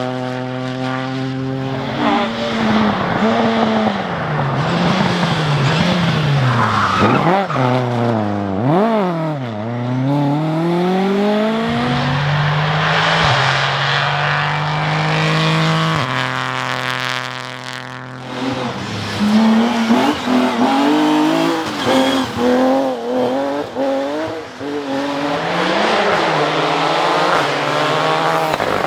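Rally car engines revving hard, the pitch climbing and dropping again and again through throttle blips and gear changes, with bursts of tyre skidding. Several cars are heard in turn, each switching abruptly to the next.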